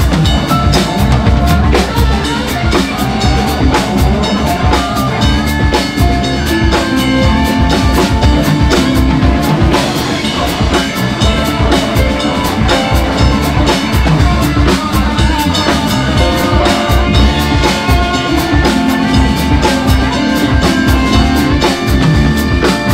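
Live band playing: drum kit with bass drum, snare and rimshot hits over bass, piano and guitar.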